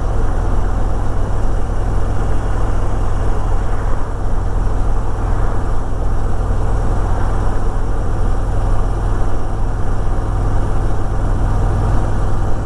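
Harley-Davidson Electra Glide Ultra Limited's V-twin engine running steadily while the bike is ridden along the road, with a strong, even low rumble.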